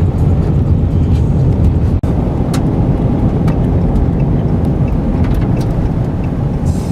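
Road and engine noise inside a moving vehicle's cabin: a steady low rumble, with one very brief drop-out about two seconds in and a few faint ticks.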